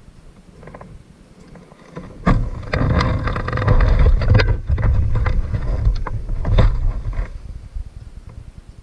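Loud rumbling vehicle noise that comes up about two seconds in, holds for about five seconds with some crackle, then dies away.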